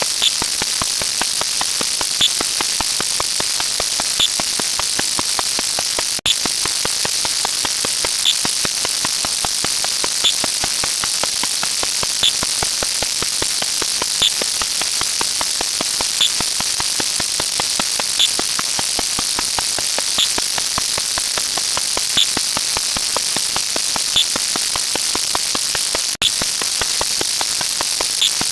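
A steady, high hiss like static or white noise. A short tick comes about every two seconds, and the sound cuts out for an instant twice, about 6 s and 26 s in.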